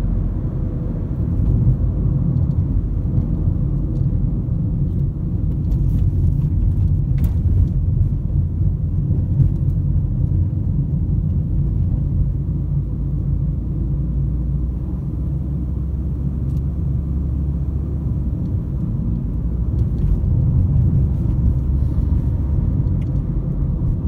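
Steady low rumble of a moving car, tyre and engine noise heard from inside the cabin.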